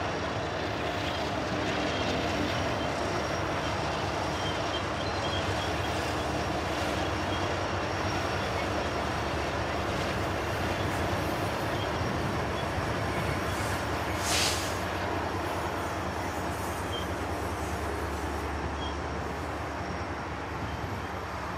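A freight train passing close by: BNSF diesel locomotives go by first, then the cars rumble past on the rails, among them a heavy 36-axle Schnabel car. About two-thirds of the way through there is one brief high-pitched squeal, the loudest moment.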